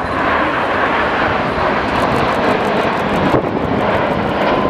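Red Arrows BAE Hawk T1 jets passing in the 5-4 cross, the two sections of the team flying through each other. The jet engine noise is loud and steady. A faint whine falls in pitch near the end as the jets pass.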